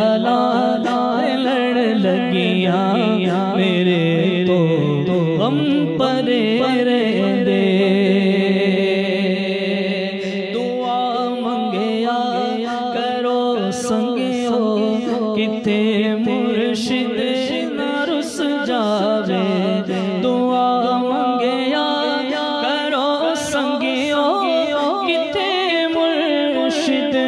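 A man singing a Punjabi naat into a microphone: a solo devotional vocal in long held notes that bend and waver in melismatic runs.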